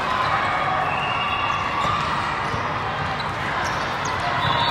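Echoing din of a large hall full of indoor volleyball courts: volleyballs being hit and bouncing on the floor, over a hum of distant voices.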